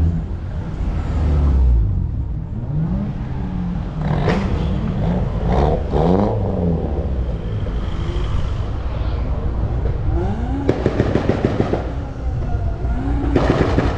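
Car engines revving up and down several times in quick succession, then a rapid run of sharp exhaust cracks about ten seconds in and another rev burst near the end.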